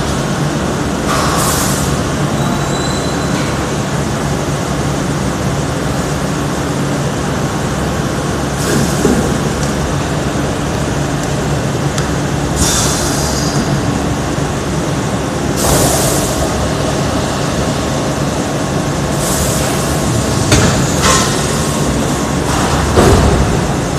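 Thermoforming vacuum packaging machine running with a steady mechanical hum, broken by several short hisses.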